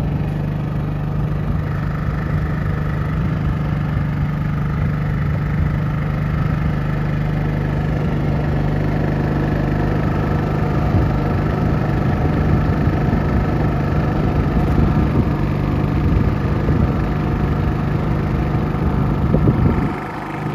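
Champion 4500-watt dual fuel inverter generator's single-cylinder engine running steadily on propane, a constant hum.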